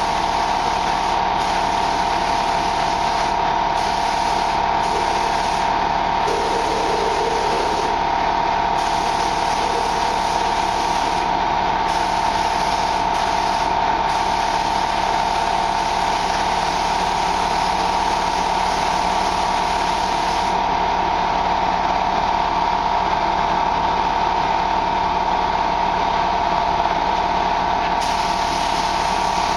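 Steady, loud mechanical hum with a strong mid-pitched tone, under a paint spray gun hissing in on-and-off passes of a second or two. The hissing stops for several seconds near the end and then starts again.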